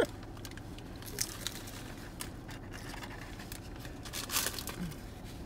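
Crunchy hard-shell taco being bitten and chewed, with its paper wrapper crinkling; a sharp crunch at the start and a louder burst of crinkling about four seconds in.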